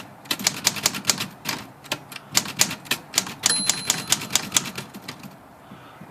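Smith Corona typewriter being typed on: a quick run of key strikes, about five or six a second, that stops about five seconds in. The keystrokes advance the ribbon so the spools turn.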